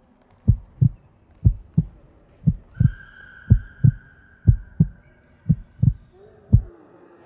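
Heartbeat sound effect: a slow, steady lub-dub, seven double thumps about a second apart. A faint high steady tone sounds through the middle.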